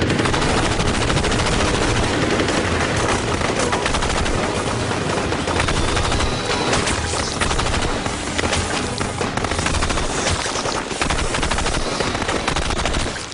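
Sustained automatic gunfire: many rapid shots overlapping in long bursts, cutting off abruptly near the end.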